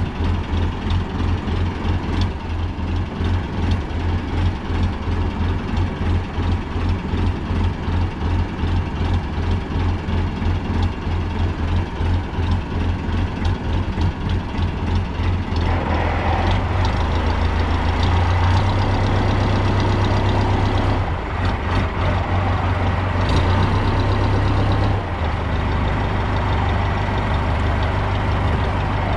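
Fishing boat's engine running with a low, rapid throb. About sixteen seconds in it picks up and runs louder and steadier, then eases off slightly a few seconds before the end.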